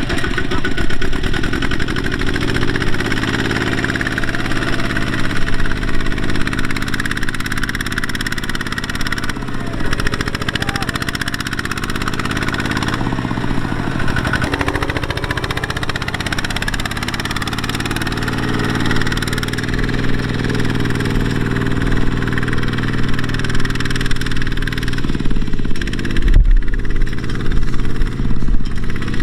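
Diesel engine of a Kubota farm machine running steadily. Its revs sag and pick up again about halfway through.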